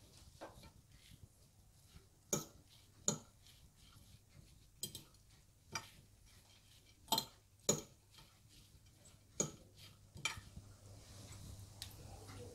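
Scattered sharp clinks and taps of metal kebab skewers and dishes being handled as minced meat is pressed onto the skewers, about eight in all at uneven spacing, with a faint soft rustle building near the end.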